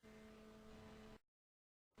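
Near silence: a faint steady hum with a few held tones, cutting off a little over a second in to dead silence.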